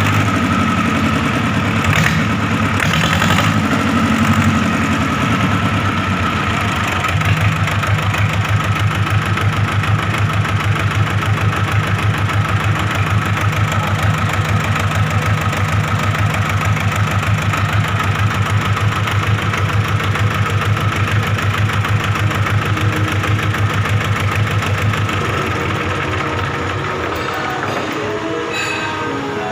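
Freshly overhauled Kirloskar HA294 diesel engine running steadily with an even pulsing beat. It becomes quieter about 25 seconds in.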